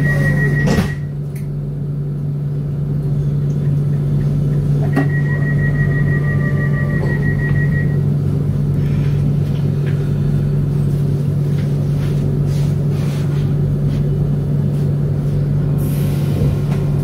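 Siemens Mireo class 463 electric multiple unit heard from inside while running: a steady low hum and rumble, with thin high whining tones from the electric drive that come and go. A knock comes just under a second in, and the sound is a little quieter after it.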